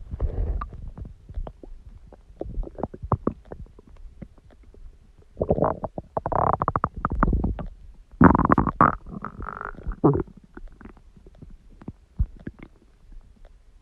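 Human stomach growling and gurgling: scattered small gurgles and pops, with two longer, louder rumbles about five and eight seconds in. The second ends in a higher, drawn-out tone.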